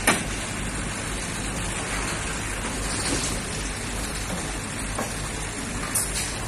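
Outdoor construction-site noise around a working crawler crane: a steady hiss over a low rumble, with a sharp click just after the start and a smaller click about six seconds in.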